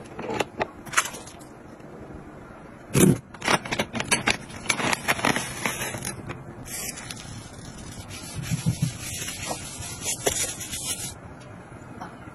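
Close-up handling noises of kitchen gadgets: clicks and taps as a vacuum sealer's lid is pressed shut, then rustling as wet wipes are drawn from a flip-top pack, with a louder knock about three seconds in.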